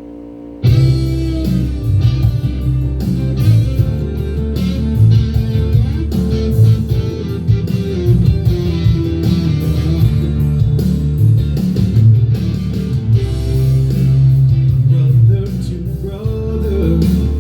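A steady hum, then about a second in a recorded guitar song with singing starts and carries on, with a strong bass line.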